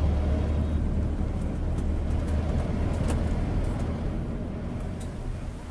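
Steady low rumble of a running vehicle engine, easing off near the end.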